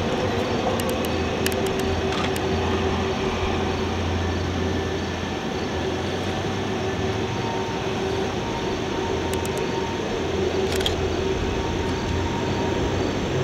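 A pair of EMD GP39-2 diesel locomotives with turbocharged 12-cylinder engines running steadily as the train approaches: a low, even engine drone. Several sharp clicks come in the first few seconds and again around ten seconds in.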